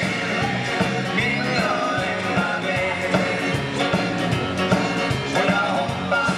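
Swedish dansband playing live: a lead vocalist sings over the full band with a steady beat.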